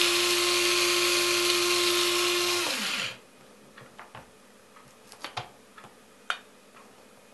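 Bosch electric blade coffee grinder running on coffee beans, a short extra burst to grind them finer: a steady loud whir for almost three seconds, then the motor is released and spins down with falling pitch. Afterwards a few light clicks as the clear plastic lid is handled and lifted off.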